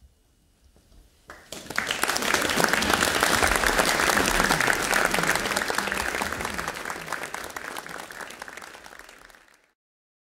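Audience applauding. It starts about a second in, quickly swells to full, then thins out and is cut off abruptly near the end.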